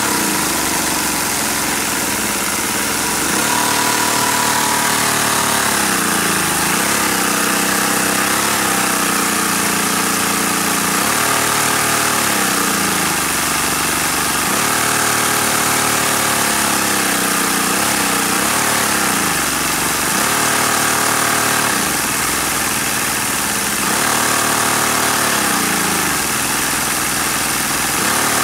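LEGO V-twin vacuum engine running continuously over a steady airy hiss. Its pitch drops sharply and climbs back again every few seconds, about half a dozen times.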